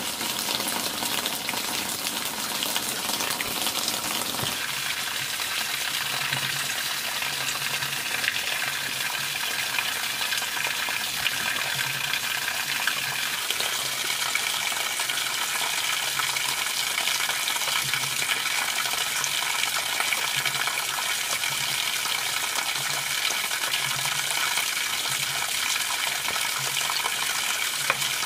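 Pork fat sizzling and crackling steadily in a hot pan as it renders down into lard. A lower rumble under the sizzle stops about four seconds in.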